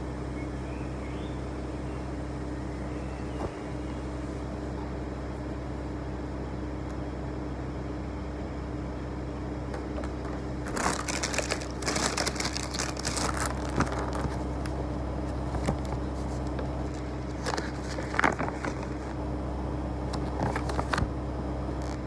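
Steady low hum in the room; about halfway through, hands start rustling and crinkling paper in irregular bursts, which carry on to the end.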